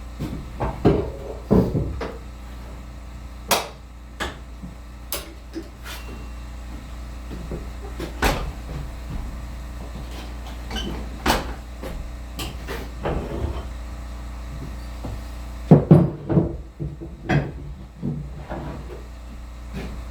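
Irregular metal clanks, clicks and knocks as a KMG-TX 2x72 belt grinder is switched around to a new setup, with the heaviest cluster of knocks about sixteen seconds in, over a steady low hum.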